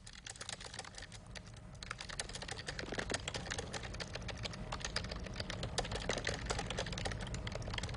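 Computer keyboard being typed on: rapid, irregular key clicks that grow faster and louder about two seconds in, over a steady low hum.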